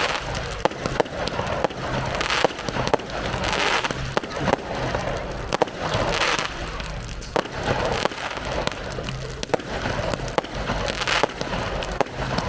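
Fireworks display: a rapid, irregular series of sharp bangs, with several short bursts of hissing crackle.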